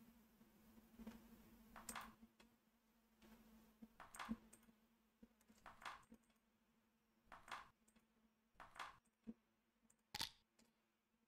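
Near silence: room tone with a faint steady hum and a few faint, scattered clicks, the strongest about ten seconds in.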